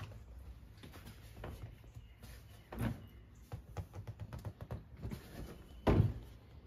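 Golf cart's front seat bottom being lifted and tipped forward on its hinge: small knocks and rattles, a sharp knock nearly three seconds in, and a louder thump about six seconds in as the seat comes up.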